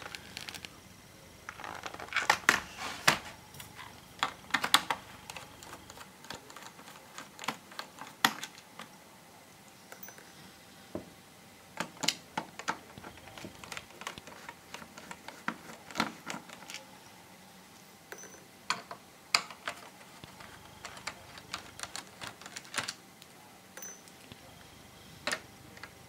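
Scattered light clicks and taps of hands and a small screwdriver on the plastic bottom panel of an MSI gaming laptop as its screws are being removed.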